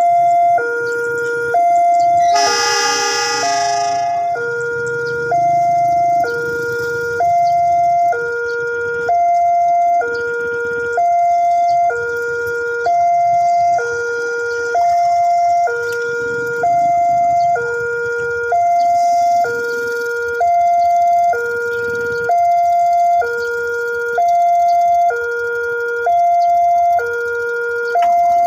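Railway level-crossing warning alarm sounding: an electronic two-tone signal, a higher tone and a lower tone taking turns steadily, the warning that a train is approaching the crossing. A brief horn blast overlaps it about three seconds in.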